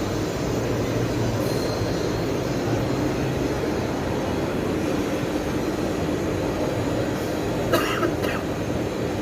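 Steady industrial machinery noise, a dense even rumble with a faint hum. Two short sharp clicks come near the end.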